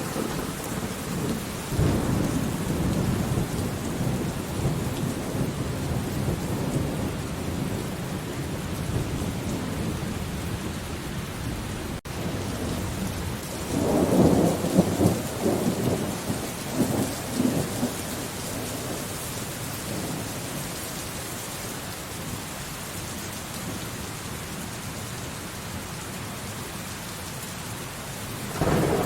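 Thunderstorm: steady rain with rolling thunder. There is a rumble about two seconds in, a louder, longer peal about halfway through, and another building at the very end.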